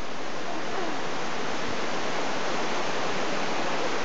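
Steady rush of a waterfall pouring over rock.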